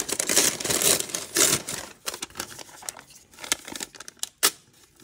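Brown packing paper rustling and crinkling as it is handled and sliced with a Spyderco Manix 2 Lightweight folding knife to test the blade's sharpness. There are scattered small clicks and one loud, sharp click about four and a half seconds in.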